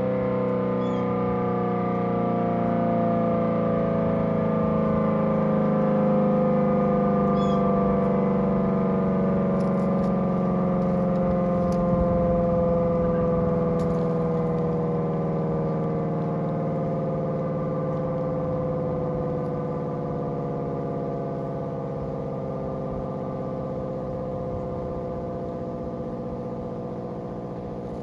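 Federal Signal SD-10 electromechanical siren coasting down, its tone falling slowly and steadily in pitch with no rise and fall. It is the wind-down at the end of the five-minute attack signal, and it grows quieter toward the end.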